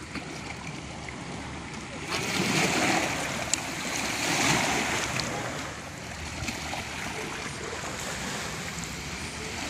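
Lake waves breaking and washing on the shore, a steady wash with two louder surges of breaking water about two and four seconds in.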